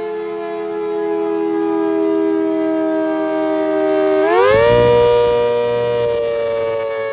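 ACA Hurricane outdoor warning siren sounding a two-note chord that slowly sags in pitch, then about four seconds in swings quickly up to a higher, louder pitch before sagging again.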